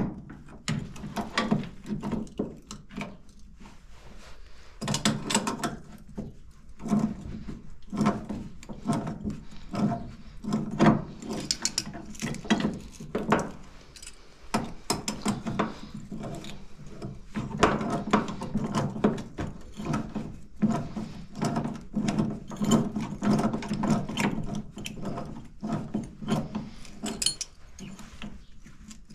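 Hand tools working on metal fittings: irregular clicks, clinks and knocks as nuts and parts of a new air-brake coupling are turned and fitted.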